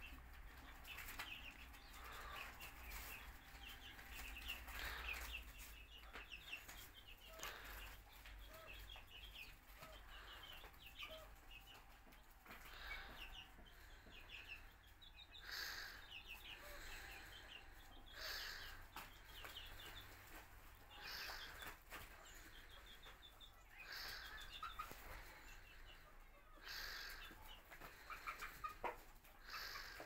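Chickens clucking, with quick high chirps throughout and a short, louder burst every few seconds.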